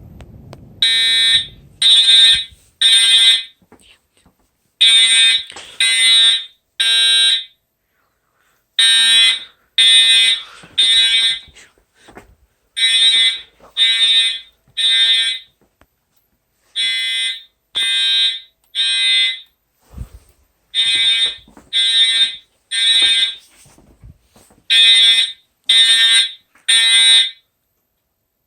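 Edwards Integrity fire alarm horn sounding in the temporal-3 evacuation pattern: groups of three loud horn blasts about a second apart, each group followed by a short pause, repeating seven times.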